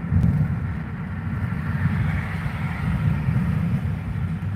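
Road noise inside a car's cabin at highway speed: a steady low rumble of tyres and engine. A faint hiss swells and fades in the middle.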